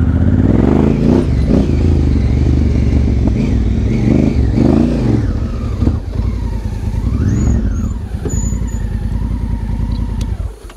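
Honda Africa Twin's parallel-twin motorcycle engine running loud, revving up and dropping back several times. The sound ends abruptly near the end.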